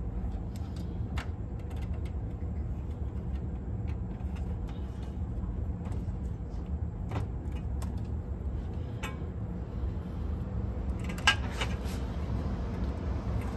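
Light plastic clicks and small rattles of wire connectors being pushed onto a cassette deck's circuit board, a few scattered clicks with a sharper cluster about eleven seconds in, over a steady low hum.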